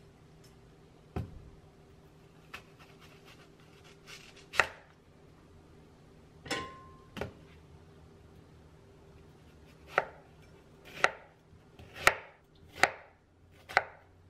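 Chef's knife cutting an onion on a wooden cutting board: about ten separate knocks of the blade striking the board, slow and uneven at first, then coming about once a second in the last few seconds.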